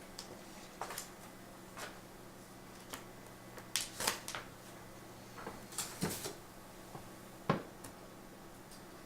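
Protective plastic film being peeled off a new laptop LCD screen: scattered soft crackles and taps, with a denser run about four and six seconds in, over a faint steady hum.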